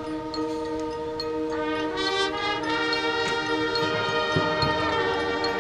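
High school marching band holding long brass and wind chords, with more instruments coming in about two seconds in and the chord building higher. There is a light tick about twice a second throughout and a few low drum thumps near the end.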